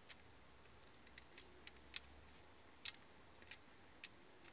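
Faint, irregular clicks of needle-nose pliers on the end of a thin metal tube as it is worked around its rim and bent outward to flare it.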